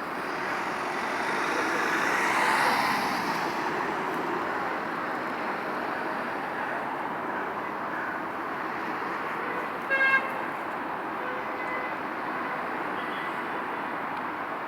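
Steady road traffic, with a vehicle passing close by and swelling then fading over the first few seconds. About ten seconds in, a car horn gives a short double toot.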